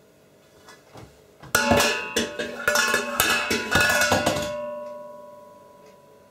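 An enamelled steel pot lid clanging against the pot, about a dozen quick, irregular metallic strikes lasting some three seconds. After the last strike the ringing fades away over a second or so.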